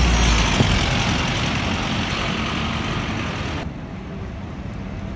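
Single-decker bus pulling away close by, its engine and tyre noise fading as it moves off. About three and a half seconds in, the sound cuts abruptly to quieter street traffic with another bus's engine running further off.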